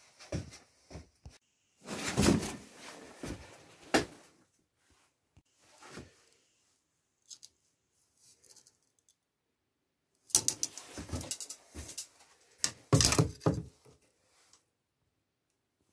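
Knocks, clicks and scraping as lumber and a metal straightedge are handled, in two busy spells, a couple of seconds in and again from about ten seconds in, with quiet gaps between.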